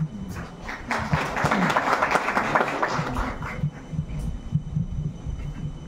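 Audience applauding: a short burst of clapping that starts about a second in and dies away after a couple of seconds.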